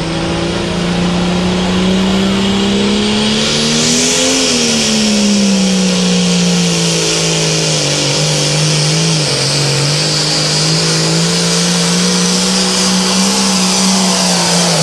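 John Deere hot farm pulling tractor's diesel engine at full power, dragging a weight-transfer sled. Its revs climb to a peak about four seconds in, then drop back and hold steady with small wavers.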